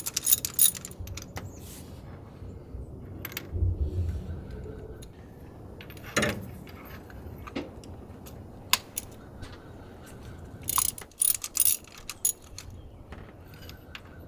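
Scattered metallic clicks and clinks of hand tools and parts being handled, with a quick cluster at the start and another around two-thirds of the way in.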